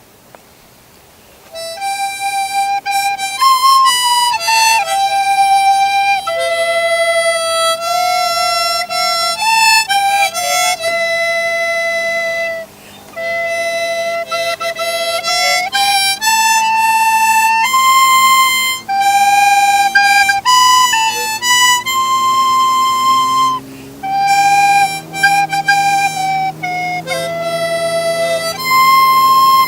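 Instrumental intro music: a single melody of held notes on a reedy wind instrument, with a lower accompanying line coming in about two-thirds of the way through.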